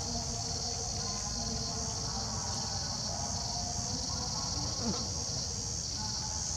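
Insects calling in a steady, high-pitched chorus without a break, over a low rumble.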